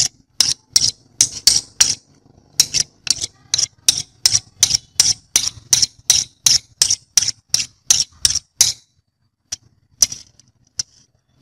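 Steel screwdriver shaft clicking repeatedly against a ferrite magnet, about three sharp clicks a second with a short break near the start, as it is stroked across the magnet to demagnetize it. The clicking stops near the end, followed by a few light taps of the screwdriver tip on small steel screws in a metal tray.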